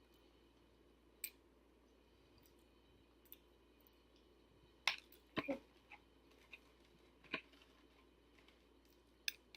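Faint mouth sounds of someone eating a doughnut: scattered sharp, wet clicks and smacks, a handful over several seconds, with a short cluster about midway.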